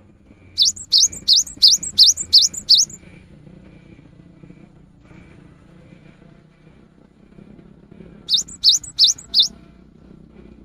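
Cinereous tit (gelatik batu) singing: a quick run of about seven sharp notes, each sweeping up in pitch, then after a pause of several seconds a shorter run of four.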